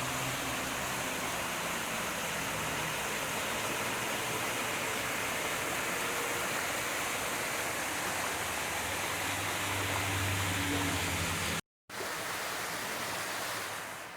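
Mountain waterfall splashing down beside the road, a steady, dense rush of falling water, broken by a short gap of silence near the end.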